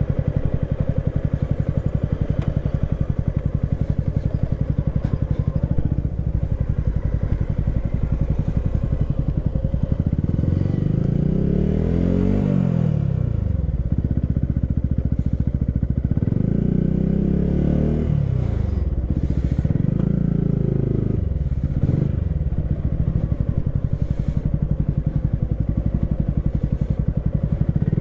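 Motorcycle engine running under way, its pitch rising and falling several times through the middle of the stretch as the throttle opens and closes.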